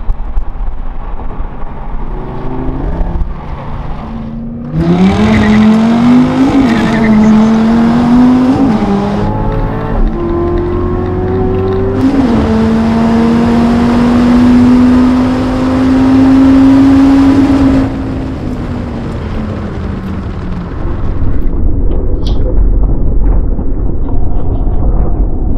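Dodge Viper TA 2.0's V10, Corvette C7 Z06 and Mercedes-AMG GT-R drag racing from a 40 mph roll, engines at full throttle. A low rumble comes first. About five seconds in, a loud engine note climbs and drops back at gear changes, holds a long rising note, then falls away, and it is loud again near the end as a car passes.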